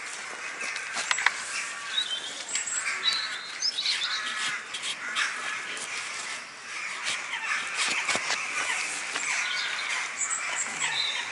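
Crow-family birds calling harshly again and again, with smaller birds chirping higher up, over a steady outdoor hiss and a few sharp knocks of handling.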